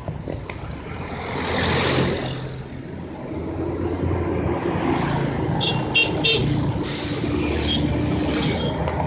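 Road traffic passing: a large vehicle's engine running, with one going by close about two seconds in. Three short, high horn beeps come in quick succession about six seconds in.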